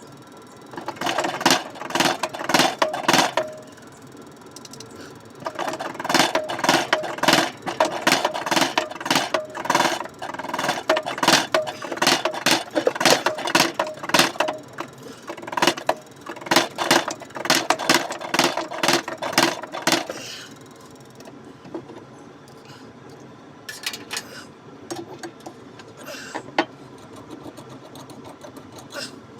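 Rapid metallic clicking from hand-tool work on metal parts. It comes in a short run, then a long run of about fifteen seconds, and after that only a few scattered clicks.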